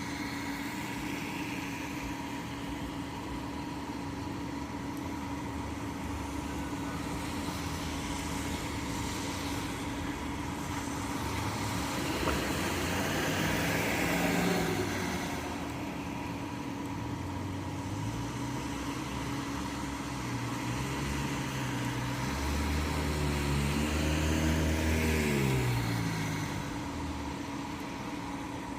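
Steady rain under a constant low mechanical hum. Twice a vehicle passes on the wet road, about twelve seconds in and again around twenty-three seconds in, each time rising and then falling away with a dropping engine pitch.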